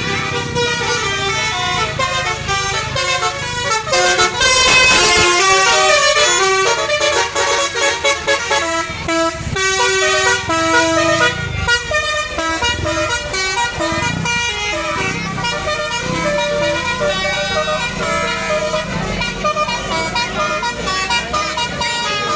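Bus "telolet" musical horn playing a tune, a run of horn notes changing pitch in quick steps, loudest a few seconds in. A bus engine runs underneath.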